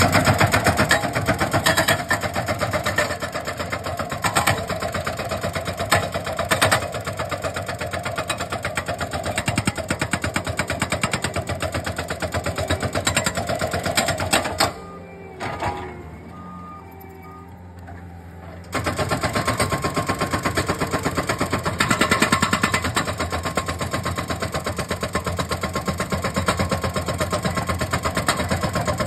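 Hydraulic breaker on a Bobcat compact track loader hammering rapidly into rock, over the loader's running engine. The hammering stops for about four seconds midway, leaving only the quieter engine, then starts again.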